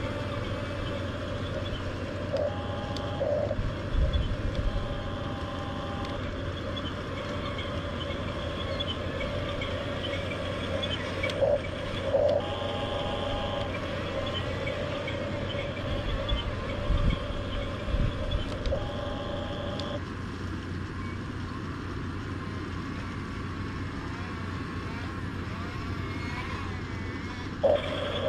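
Hunia 1569 RC bulldozer's small electric drive motors whining steadily as it runs, the whine dropping out for several seconds about two-thirds of the way through. A higher tone switches on for a second or so several times, with a few knocks.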